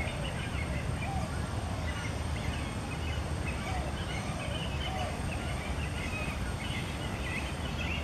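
Water birds in a nesting colony calling: many short high chirping calls overlapping, with lower croaking calls every second or so, over a steady low rumble.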